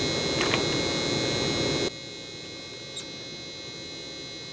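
Welding arc buzzing steadily while a tack weld is laid on 1/4-inch steel plate, cutting off sharply about two seconds in.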